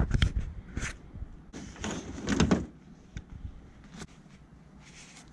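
Fishing gear being handled in a pickup truck bed: a few sharp knocks, then a rough sliding scrape about a second and a half in that lasts about a second.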